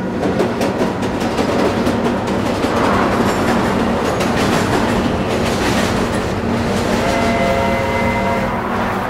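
A train running at a railway station with a clattering rhythm of clicks over a steady rumble; a set of steady tones joins about seven seconds in.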